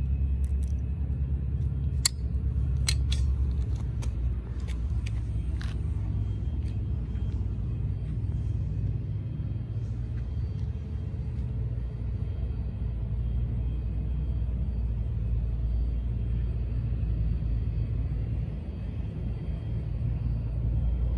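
A steady low rumble, with a handful of sharp metallic clicks in the first few seconds as locking pliers are clamped onto the terminals of a lithium cell to dead-short it.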